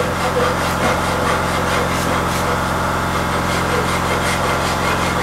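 Wood rasp scraping across the arm of a wooden rocking chair in repeated strokes, shaping and flattening the wood. A steady machine hum runs underneath.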